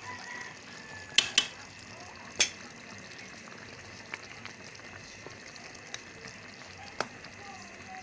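Chicken afritada in tomato sauce simmering in a pot, a steady bubbling hiss, with sharp clinks of a utensil against the pot as hotdog slices are stirred in: two about a second in, one more a little later and another near the end.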